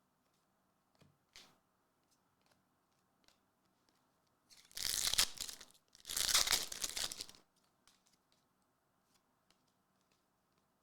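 A foil trading-card pack wrapper being torn open, two tearing rips about a second long each, back to back around the middle, with faint crinkles and card clicks around them.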